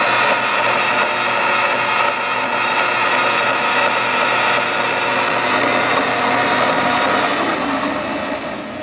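KBC GRIP-1236 engine lathe running with its 6-jaw chuck spinning: a steady mechanical whine and hum from the spindle drive. It fades near the end.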